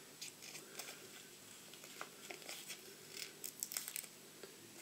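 Faint rustling and light clicks of hands handling fly-tying materials at the bench, with a cluster of sharper rustles about three and a half seconds in.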